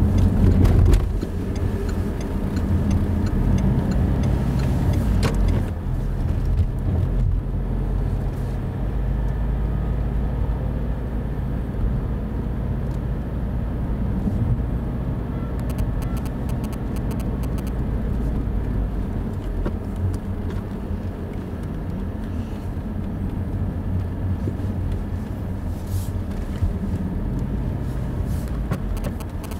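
A car driving at low speed, heard from inside the cabin: a steady low hum of engine and road noise, a little louder in the first second.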